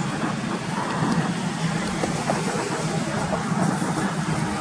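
Highway traffic: a heavy container truck's diesel engine and tyres running along the road, a steady low drone under a wide hiss of road noise.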